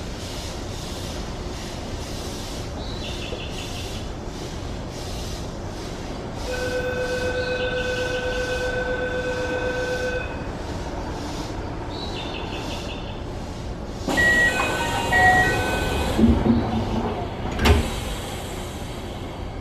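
Commuter train standing at a station platform with its doors open: a steady electronic buzzer tone sounds for about four seconds, then a run of short warning chime tones. The train's sliding doors and the platform screen doors close, ending in a knock near the end.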